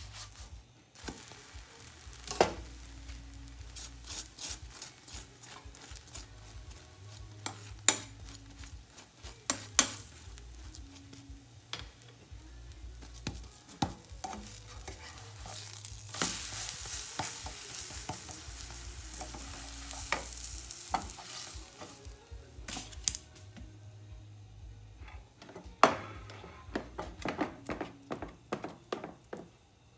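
Pancake sizzling in a nonstick frying pan while a spatula scrapes it and knocks against the pan every few seconds, the sizzle growing louder for a few seconds in the middle. Near the end a whisk clatters quickly in a bowl of pancake batter.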